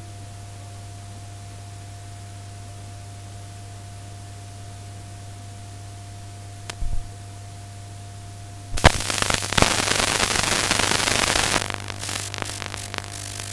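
Noise from a blank stretch of VHS tape: a steady low mains hum with a faint thin tone, a short click about seven seconds in, then about nine seconds in a loud burst of hiss (static) lasting roughly three seconds that breaks up into crackles.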